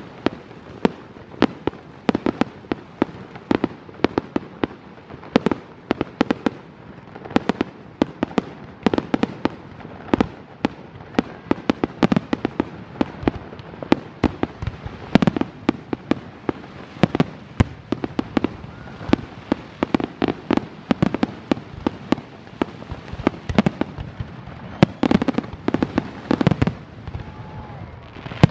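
Fireworks display: rapid, dense volleys of aerial shell bursts and crackling bangs, several a second, each echoing.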